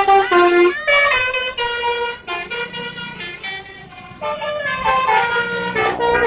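A bus's multi-tone 'telolet' musical air horn (Basuri type) playing a rapid tune of stepped notes. It is loud at first, eases off in the middle, and picks up again about four seconds in.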